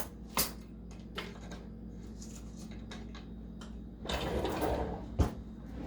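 Kitchen utensils clicking and knocking lightly as they are arranged in a drawer, with a longer scraping slide about four seconds in and a sharp knock just after.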